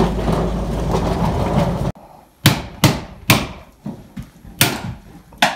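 Five sharp knocks over about three seconds, spaced unevenly, as a tool strikes the wooden frame of an old window being taken out. Before them a steady low outdoor rumble cuts off abruptly.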